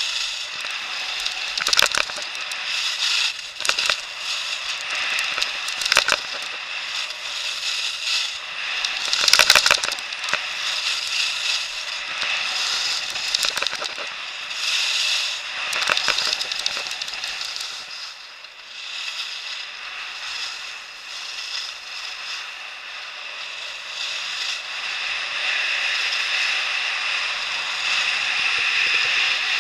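Skis sliding down a packed-snow piste: a steady hissing scrape with louder crackling scrapes every few seconds.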